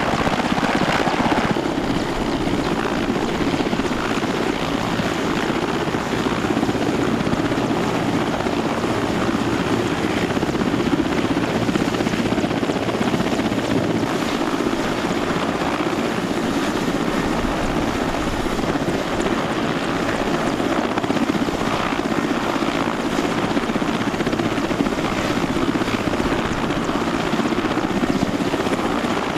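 Mil Mi-17 helicopter's twin turboshaft engines and main rotor running steadily, a loud, unbroken turbine and rotor noise.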